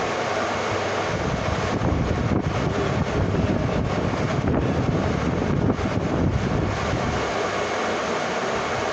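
Lathe running with a steady hum; from about a second in until about seven seconds, a louder, rougher rumble rises over it, then it settles back to the hum.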